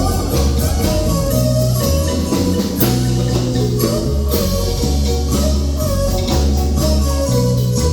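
Marimba music: quick mallet notes over a steady bass line and percussion.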